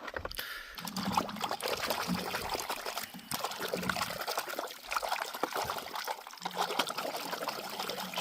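Water running and trickling steadily, with a faint low hum that comes and goes, as when toys are washed under running water.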